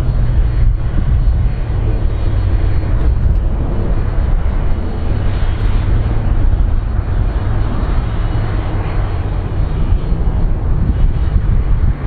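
Airplane landing: a steady, loud, low rumble of engine and air noise, with a rougher hiss higher up that swells a little midway.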